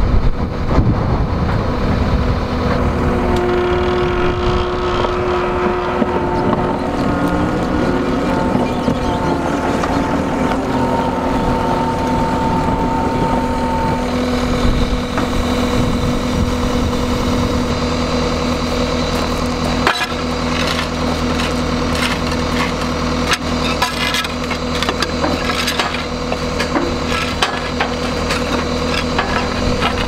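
Diesel engine of a John Deere 333G compact track loader running steadily while it carries and sets down a big red oak log. Its note changes partway through and settles into a steady low hum, with a few sharp knocks of wood and metal in the second half.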